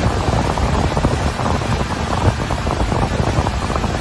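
Loud, steady wind rush and buffeting on the microphone during a fast ride on open water, with the noise of the boat and water beneath it.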